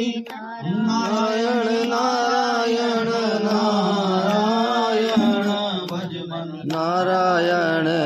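A Hindu devotional mantra chanted by a single voice in long, gently wavering held notes, with short pauses about half a second in and again around six seconds in.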